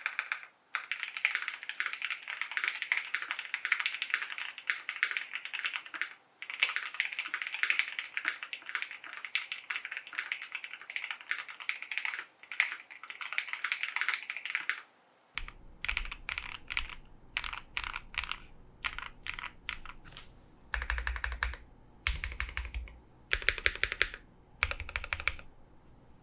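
Typing on a custom 65% mechanical keyboard with lubed KTT Kang White linear switches, an FR4 plate and the tape mod: a long run of fast, continuous keystrokes, then slower single key presses and short bursts of clicks in the last ten seconds, some with a deeper thump.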